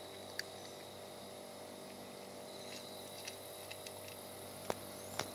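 A cat crunching dry kibble from a plate: a handful of short, sharp crunches scattered through, the loudest two near the end, over a faint steady hum and insect chirping.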